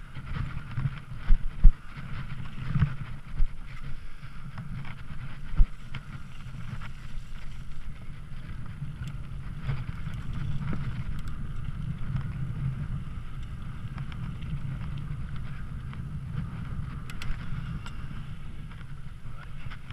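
Mountain bike ridden over a dirt track: steady tyre rumble and wind on the microphone, with sharp knocks and rattles from the bike over bumps, several in the first few seconds.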